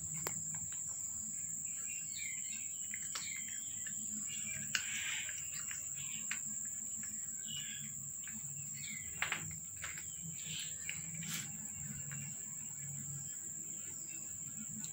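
A steady, high-pitched insect drone, with scattered bird chirps and a few faint clicks over it.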